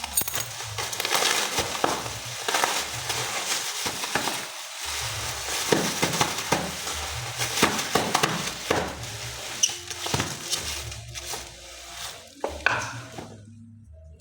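Plastic packaging crinkling and rustling as a phone box is unwrapped and handled, with scattered clicks and taps.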